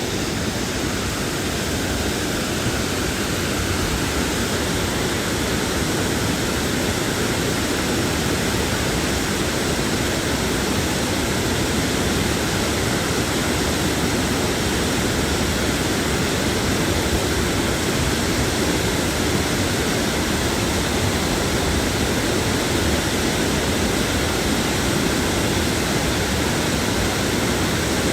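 Water pouring over a hydroelectric dam's spillway, a steady, even roar of falling water.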